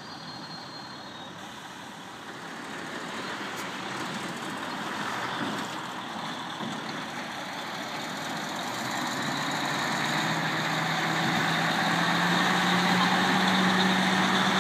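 Mercedes-Benz Actros 3350 heavy truck's V8 diesel engine running as the tractor unit pulls its flatbed trailer slowly past, growing steadily louder. A steady low engine drone comes in about two-thirds of the way through as the cab draws level.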